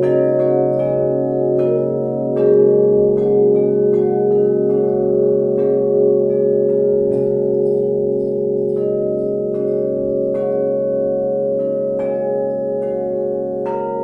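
Hanging flat metal bell plates (bila) struck with a mallet, each strike ringing on in long tones that overlap into a layered wash of pitches. The strikes come several a second early on and space out to about one every second or so in the second half.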